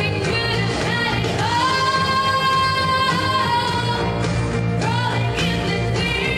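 A woman singing into a handheld microphone over pop backing music, holding one long note for about two seconds near the middle.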